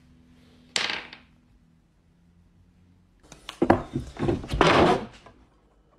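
Knocks and clatter: a single thud about a second in, then a cluster of sharp knocks and clattering from about three to five seconds in.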